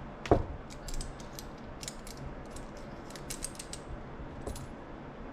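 Small hard clicks and taps of a metal RC driveshaft being worked in a driveshaft straightening tool: one loud knock just after the start, then a quick run of light clicks over the next three seconds and one more near the end.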